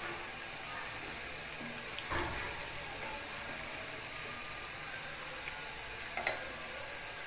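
Sliced onions sizzling steadily as they fry in hot oil in a frying pan, with two light knocks, about two and six seconds in, as a slotted spoon stirs them against the pan.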